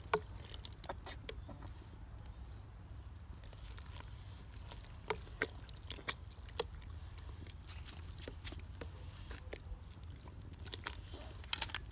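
Pot of tonjiru (pork miso soup) being stirred with a utensil: scattered, irregular light clicks and taps over a low steady rumble.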